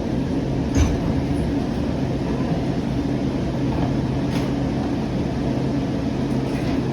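Steady running noise inside a Siemens S700 light rail car, a constant low hum with a sharp knock about a second in and a lighter one about four seconds in.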